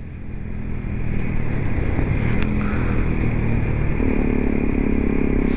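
Kawasaki Z125's single-cylinder 125 cc four-stroke engine with an Arrow sport exhaust running under way on the road, its note rising to higher revs about four seconds in.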